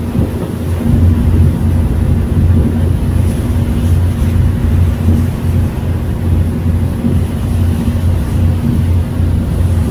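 Passenger ferry's engine running steadily, a loud low drone with a faint hum above it, heard on board.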